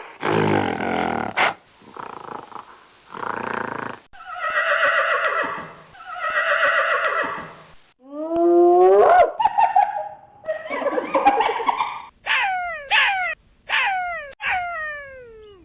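A string of animal calls spliced together with abrupt cuts: pitched calls, a rising call, then a series of about six short falling calls near the end.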